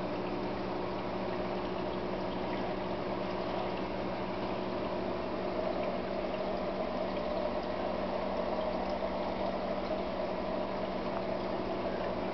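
Aquarium water bubbling and churning steadily from a stream of air bubbles, with a steady low hum under it.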